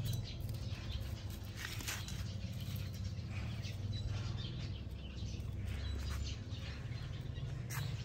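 Soft patter and scattered small clicks and rustles of a baby macaque climbing over clothing and a fabric hammock, with a sharper tick about two seconds in and another near the end, over a steady low hum.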